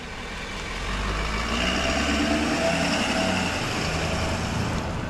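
Box ambulance on a Ford truck chassis pulling out of its bay and driving past. Its engine and tyres get louder about a second in, then hold steady.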